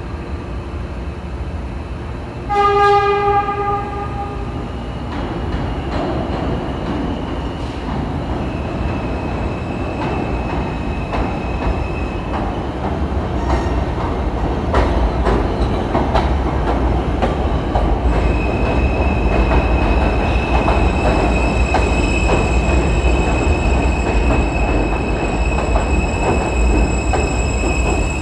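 R160 subway train arriving at a station. It sounds its horn once, about two seconds long, near the start, then its rumble grows louder as it comes in, with wheel clicks over the rail joints and a high steady squeal as it slows alongside the platform.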